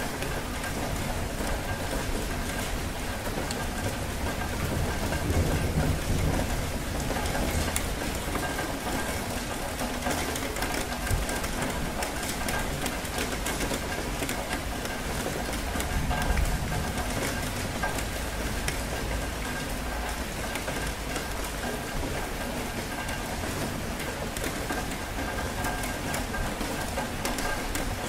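Steady rain falling hard in a rainstorm, with a low rumble swelling about five seconds in and again around sixteen seconds.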